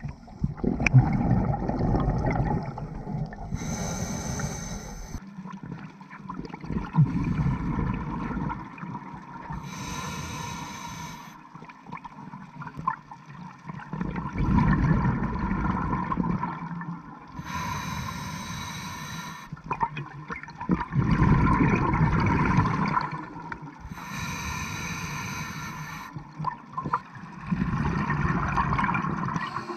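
Scuba diver breathing through a regulator underwater: a short hiss on each inhale, then a longer gurgling rush of exhaled bubbles, repeating about every seven seconds.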